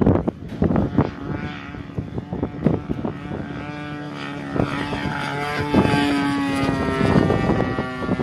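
Hangar 9 radio-controlled Spitfire model's engine and propeller droning in flight, growing louder in the second half as the plane comes nearer. A few brief thumps come in the first few seconds.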